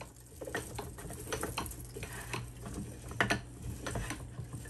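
Vertical stainless steel sausage stuffer being cranked, with irregular clicks and wet squelches as the ground catfish mixture is forced through the stuffing tube into the casing; one louder click about three seconds in.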